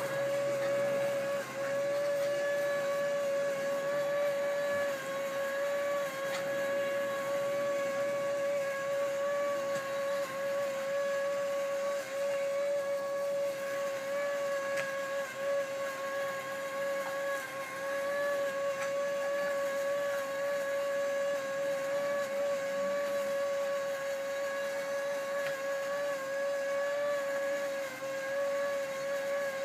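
Toy bubble machine's small fan motor running with a steady whine.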